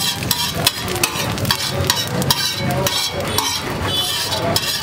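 Metal spatula scraping and knocking across a flat street-food griddle, a quick run of sharp scrapes and clinks, about two or three a second, over a steady sizzle from the hot griddle.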